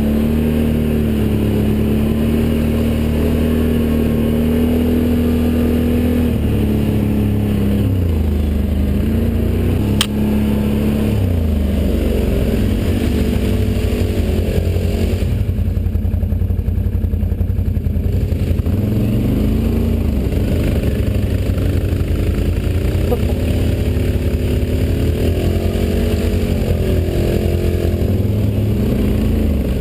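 ATV engine running as the quad is ridden. Its pitch holds steady for the first few seconds, then repeatedly drops and climbs as the throttle is eased off and opened again. A single sharp click comes about ten seconds in.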